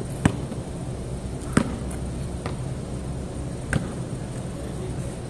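A basketball bouncing on a concrete court: three sharp thuds, the first two about a second and a half apart and the third about two seconds later, over a steady low background rumble.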